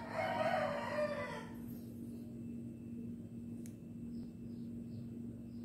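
A rooster crowing once, a single long call of about a second and a half that falls away at its end, over a steady low hum.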